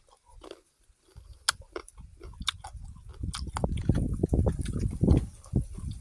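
A person chewing and biting into fresh fruit close to the microphone. Sparse crisp clicks come first; after about three seconds the chewing becomes louder and denser.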